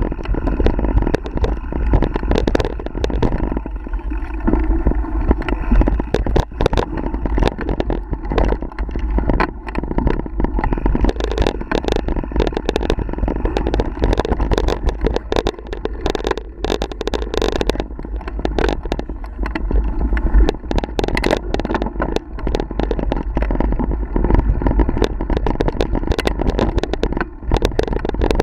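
Mountain bike riding noise picked up by a bike-mounted action camera: wind rumble on the microphone and tyre noise on a dirt trail, with frequent sharp rattles and knocks as the bike runs over bumps.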